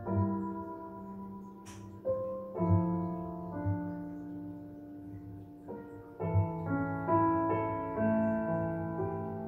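Recorded solo piano played back over DIY two-way loudspeakers and picked up in the room: slow, sustained chords, a new one struck every few seconds, with more notes moving in the last few seconds.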